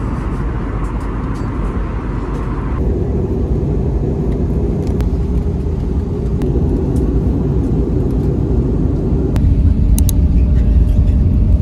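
Steady low rumble of a moving vehicle heard from inside, changing abruptly about three seconds in and again after nine seconds.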